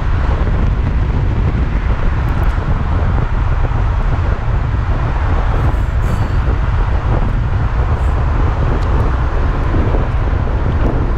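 Steady in-cab driving noise of a 2015 Ford F-350 dually pickup under way: a low, even rumble of its turbocharged V8 diesel and the road, with a few faint ticks.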